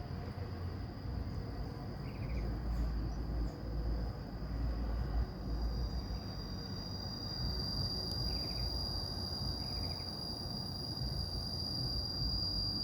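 Insects trilling steadily at a high pitch, growing louder about halfway through, with a few short chirps and a low rumble underneath.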